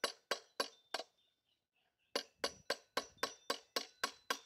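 Hand hammer striking a mild steel bar on a railroad-track anvil: a steady run of ringing metallic clinks, about three a second. The blows stop for about a second, a second in, then start again.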